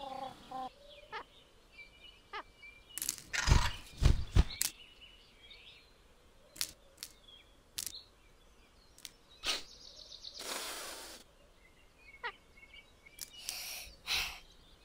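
Sparse cartoon sound effects for a small animated bird: scattered light clicks and taps, a cluster of louder soft thumps about three to four and a half seconds in, a short whooshing rush around ten seconds, and a few faint high chirps.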